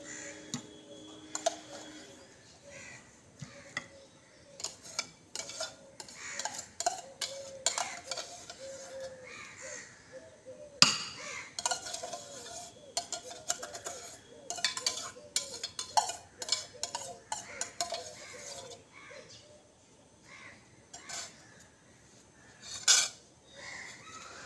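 A steel spoon clinking and scraping against a stainless steel bowl as cooked rice is scooped out, in many quick irregular clinks with a few sharper knocks.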